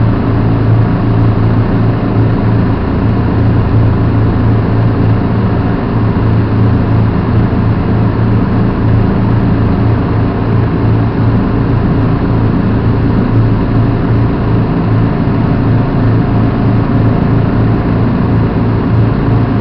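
Engine of a Hägglunds BV206 tracked all-terrain carrier running in a loud, steady drone as it moves through floodwater, heard from inside the cab.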